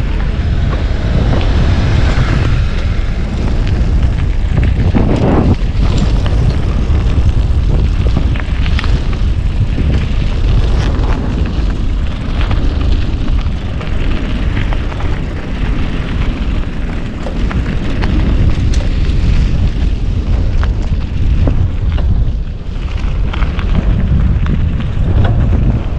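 Wind buffeting the camera's microphone during a bicycle ride: a loud, steady rumble with no let-up.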